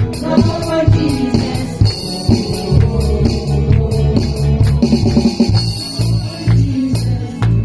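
Live band music with drum kit, bass and guitar playing a steady beat, in a church worship song.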